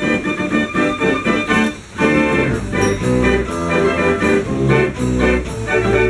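A book-music mechanical organ, its perforated cardboard music book feeding through the key frame, plays a fast gallop with quick repeated notes. It breaks off for an instant about two seconds in, then carries on with heavier bass notes.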